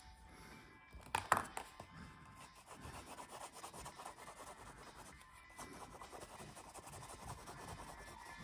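Scratchy rubbing strokes on drawing paper, with a louder scrape about a second in, then quick strokes that keep on steadily.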